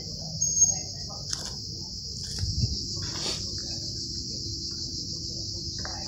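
A steady, unbroken chorus of insects singing, high-pitched. Beneath it a faint low rumble and a few soft knocks, with one brief high chirp about half a second in.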